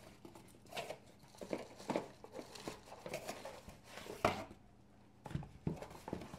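Cardboard shipping box being handled and opened by hand: a string of short rustles, scrapes and taps of cardboard, with one sharper knock about four seconds in.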